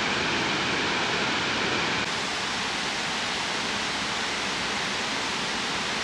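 Waterfalls cascading into a lake: a steady, even rush of falling water.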